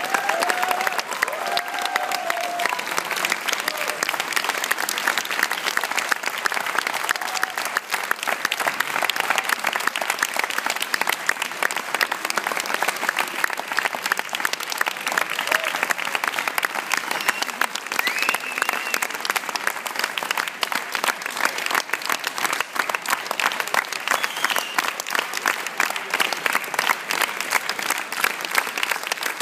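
A large theatre audience applauding steadily. The dense clapping goes on without a break, with a few voices calling out in the crowd now and then.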